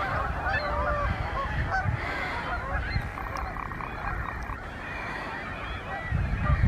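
A flock of Canada geese honking, many overlapping calls at once, over a low rumble that swells near the end.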